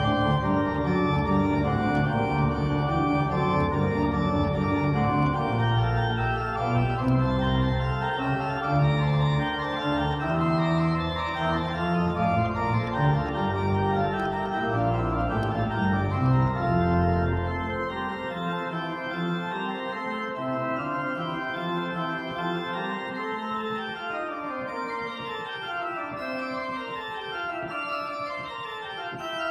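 Two-manual church organ played, full chords over a deep pedal bass. About two-thirds of the way through the bass drops out and it goes quieter, with runs of notes falling in pitch.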